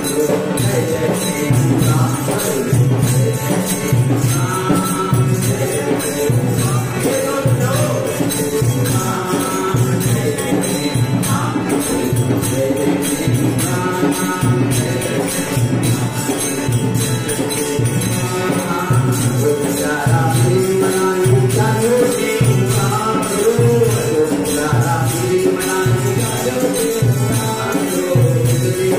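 Devotional bhajan music: a harmonium playing the tune over a steady percussion beat, about one stroke a second.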